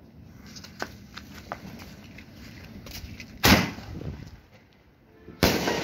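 A ground-lit firework going off: scattered small crackles and pops as it takes light, then a sharp bang about three and a half seconds in as it sends sparks shooting upward, and a second loud bang near the end that carries on into crackling.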